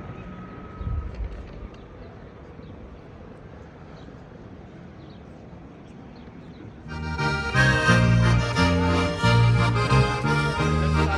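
Faint background noise with a brief low thump about a second in. About seven seconds in, accordion folk music starts suddenly and loud, with a rhythmic bass line under the melody.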